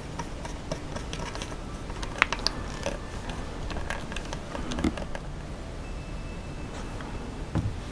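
Hex screwdriver driving small screws by hand into an RC buggy's plastic and carbon servo mount: scattered light clicks and scrapes, with a few sharper clicks about two seconds in and a soft knock near the five-second mark.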